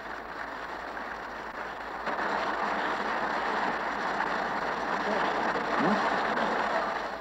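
Members of parliament applauding at the close of a speech. The applause swells about two seconds in and thins out near the end. It sounds dull and narrow, as on an old radio broadcast taped off the air.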